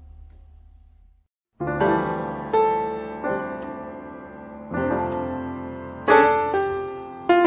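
Background music: a held tone fades away, and after a brief silence a piano-like keyboard starts playing slow chords, a new chord about every second.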